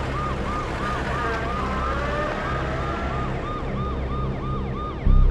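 Ambulance siren in a fast yelp, its pitch rising and falling about three times a second, over a low steady hum. Near the end a loud low rumble cuts in.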